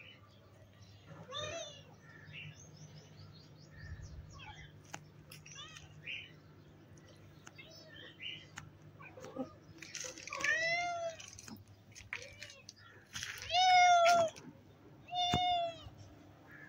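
Cat meowing: short faint calls at first, then three louder, drawn-out meows in the second half, the middle one the loudest.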